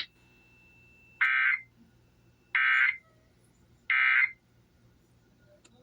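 Emergency Alert System end-of-message signal: three short bursts of digital data tones (the SAME code), each under half a second, about a second and a third apart. They mark the end of the alert message.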